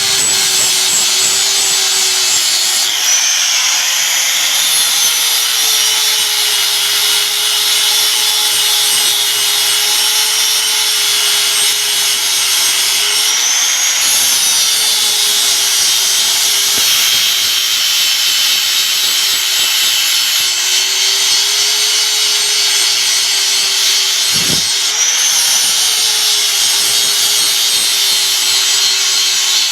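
An electric power tool running continuously under load, with a continuous high hiss. Its motor tone sags and then picks back up several times.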